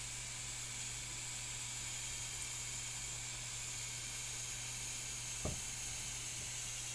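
Steady background hiss with a low hum underneath, and one short thump about five and a half seconds in.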